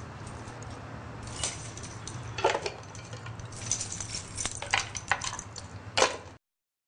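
Keys jingling and clinking as they are handled at a small wooden wall key cabinet, a scatter of light metallic clicks over a low steady hum. A sharp knock near the end as the cabinet door is shut, then the sound cuts off abruptly.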